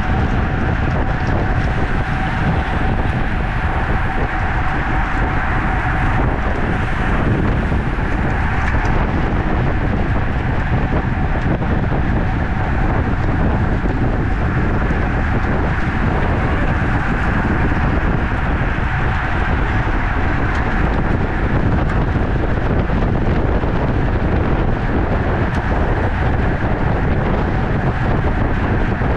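Wind rushing over the microphone of a camera riding along in a bicycle criterium, over a steady low road rumble. A thin steady whine sits in the noise, clearer near the start and again near the end.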